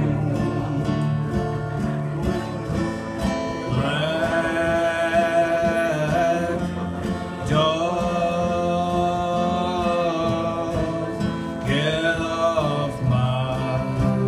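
Live acoustic country music: three strummed acoustic guitars under a wordless sung yodel refrain, long held notes that each swoop up into place, three phrases in turn.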